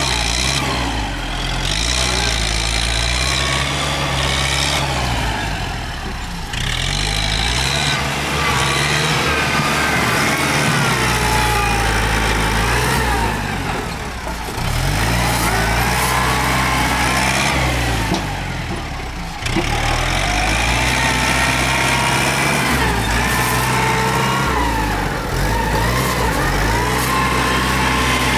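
Kubota tractor's diesel engine running as the tractor works with its dozer blade, its pitch rising and falling and easing off briefly a few times.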